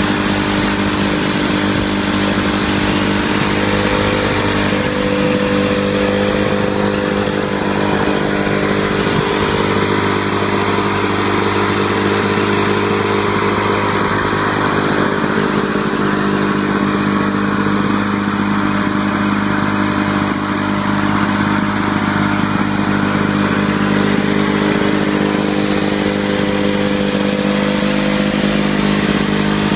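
Freshly restored Lawn-Boy 6255 'bricktop' mower's two-stroke engine running at a steady speed.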